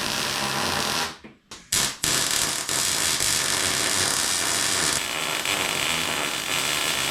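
Electric welding arc crackling and hissing steadily as steel pieces of a frame are tacked together. It breaks off abruptly about a second in, with a brief spurt in the gap, then strikes up again.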